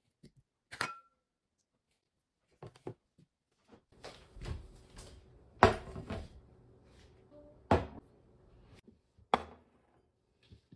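A metal spoon clinks once against a ceramic plate with a short ring, then ceramic dishes knock and thunk as they are set down on a wooden table. The loudest knock comes about six seconds in, with two more near the end.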